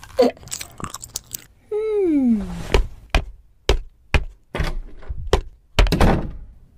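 Fork clicking and scraping on a plate piled with hard plastic bits, a tone sliding down in pitch about two seconds in, then a run of evenly spaced footsteps, about two a second, that stop near the end.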